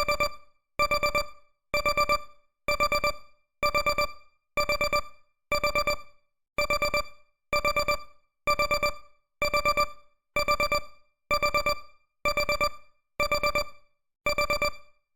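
Countdown timer's electronic alarm beeping at the timer's end: groups of four quick, high beeps repeating about once a second.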